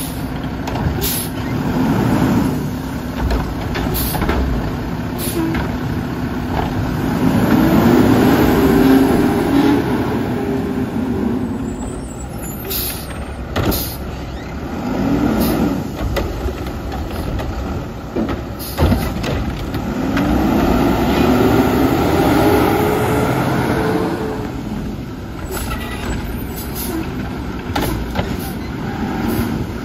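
Mack LEU garbage truck with a McNeilus Atlantic front-loader body working at the curb. Its diesel engine revs up and settles back several times, with two longer rises, as it drives the hydraulics of the cart-grabbing arm. Short air-brake hisses and knocks come in between.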